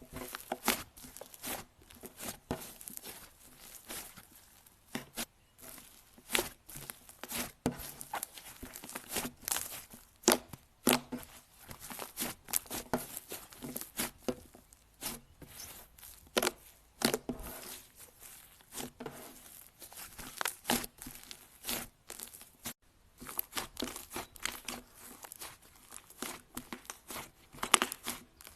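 Slime being squeezed and worked by hand, giving dense, irregular crackles and pops, with a short lull about two-thirds of the way through.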